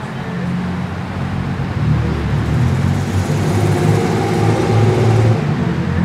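A car driving past on the street, its engine and tyres growing louder from about a second in and easing off near the end.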